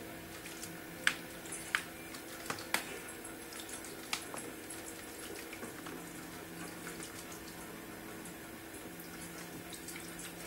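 Light splashing and dripping of water as a scops owl bathes in a shallow plastic tray, with several sharp splashes in the first four seconds and quieter ones after. A steady low hum runs underneath.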